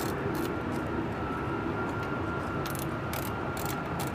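Steady drone of aircraft machinery on a flight line, with a thin high whine running through it. A few light clicks are heard as hand tools are handled at a metal aircraft pod.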